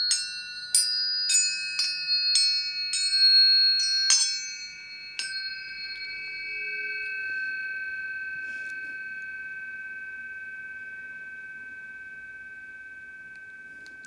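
A run of bright, bell-like struck metal tones, about two a second, with the notes overlapping and ringing on. After about five seconds the strikes stop and one clear tone rings on, fading slowly.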